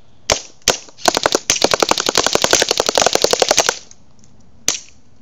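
Airsoft gun firing: two single shots, then a rapid full-auto burst lasting about two and a half seconds, then one more single shot near the end.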